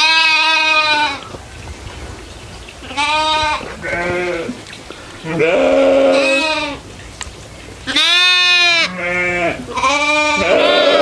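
Goats bleating, several calls in a row at different pitches, each wavering and lasting up to about a second, from more than one animal.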